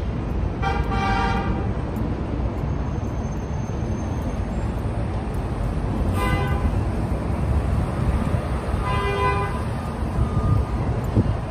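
Three vehicle horn honks over steady street traffic. The first lasts about a second near the start, a short toot comes around the middle, and a longer one sounds near the end.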